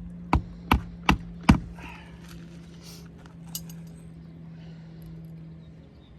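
Hammer driving a roofing nail into a replacement shingle: four quick strikes in the first two seconds, then one light tap.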